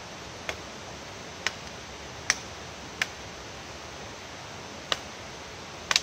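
Six sharp knocks of a machete blade striking green wood, irregularly spaced, the last and loudest a quick double strike near the end, over a steady hiss.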